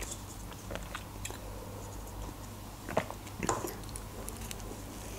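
A person chewing a burger, with small mouth clicks. About three seconds in comes a big bite into the burger, heard as a couple of louder bites before the chewing goes on.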